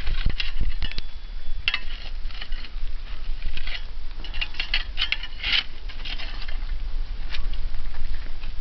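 A long metal tool clinking and scraping against rocks as red-hot stones are dug out of a bonfire, with repeated sharp clinks mixed with the fire crackling.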